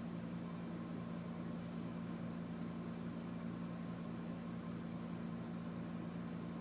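A steady low hum with constant hiss, unchanging throughout.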